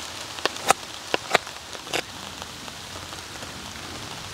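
Steady rain falling, with a handful of sharp ticks in the first two seconds.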